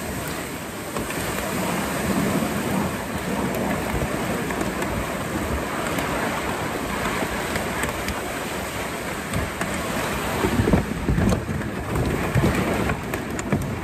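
Weeds and brush rustling and scraping as two people haul a canoe down a steep, overgrown bank, with a few sharper knocks near the end.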